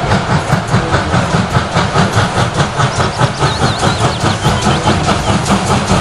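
Steam locomotive chuffing in a steady, quick rhythm of about four exhaust beats a second, with a constant hiss of steam.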